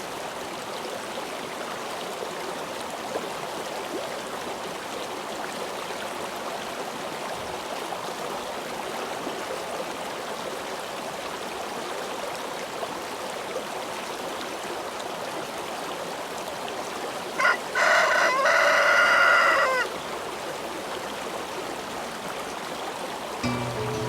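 A rooster crows once, about two-thirds of the way through, in one call of about two seconds that falls in pitch at the end, over a steady background hiss.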